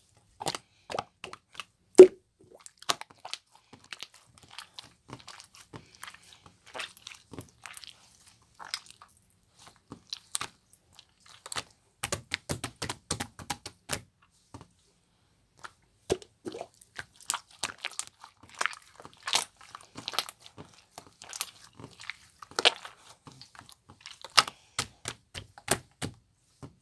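Homemade slime of canned gel slime and liquid glue being squeezed and stretched by hand, giving irregular sticky clicks and crackling pops, with a couple of short pauses.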